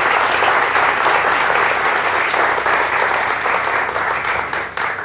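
Studio audience applauding, a dense steady clapping that eases off only at the very end.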